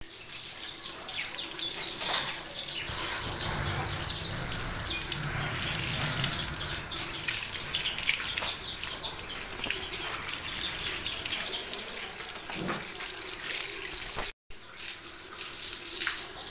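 Water from a hose running and splashing over a motorcycle as it is rinsed, a steady spattering noise with a brief dropout near the end.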